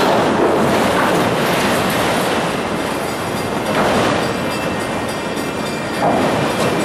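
Autorack cars of a Union Pacific freight train rolling past, their steel wheels rumbling and clacking on the rails, with a few slightly louder swells along the way.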